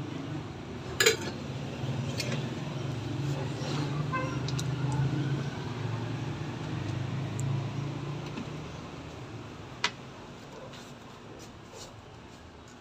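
A pot of vegetable soup boiling on a gas burner, a steady low rumble. A sharp metal clink comes about a second in, and a second clink near ten seconds as the glass lid goes onto the stainless pot, after which the sound grows quieter.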